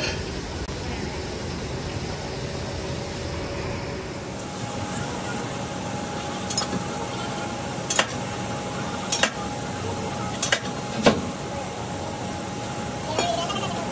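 Several sharp metal clanks, spaced unevenly, as a long steel bar levers the geared locking ring on the door of a Bandag retread curing chamber. A steady machine hum and hiss runs underneath.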